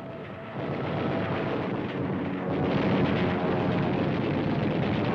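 Battle sound effects on a wartime newsreel soundtrack: a continuous rumbling din of explosions and gunfire. It grows louder about half a second in and again near three seconds.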